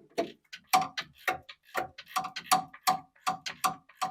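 Hand ratchet clicking in quick, slightly uneven strokes, about three clicks a second, as a starter mounting bolt is worked out by hand.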